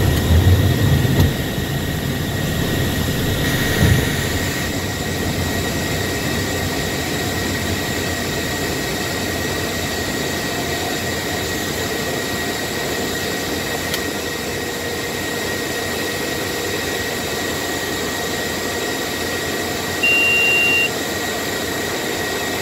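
Steady cockpit noise of a Cessna Citation Bravo climbing after takeoff: its twin turbofan engines and the airflow, with a faint steady whine. A low rumble fades out in the first second or so and there is a short thump about four seconds in. Near the end a single electronic beep sounds for about a second.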